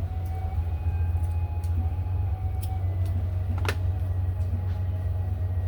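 Jiangdong 195 single-cylinder diesel engine running steadily with a deep, even hum, and one sharp click about two thirds of the way through.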